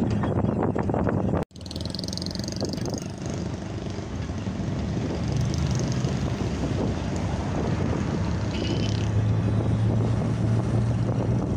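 Steady wind and road noise from a Ford Ranger pickup on the move, with a low engine hum under it. The sound cuts out for an instant about a second and a half in.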